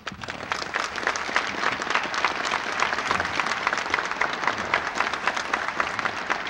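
Audience applauding: dense clapping that swells within the first second and then holds steady.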